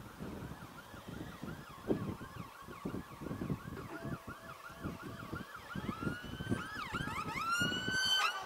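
Ambulance sirens in a fast yelp, a rising-and-falling wail about three times a second. Near the end the siren changes to slower upward sweeps, holds a high tone, then cuts off suddenly.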